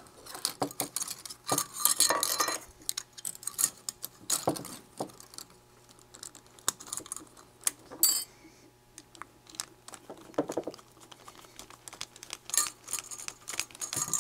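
Scattered light clicks and clinks of small metal parts and a screwdriver being handled while a part is fitted back onto the metal housing of a night vision scope, with a brief high scrape about eight seconds in.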